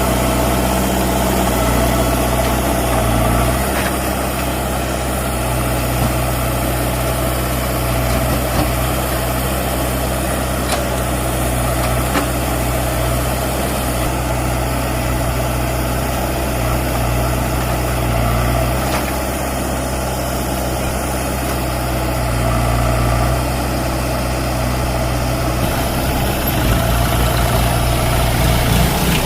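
Heavy diesel engine running steadily, its note shifting a few times.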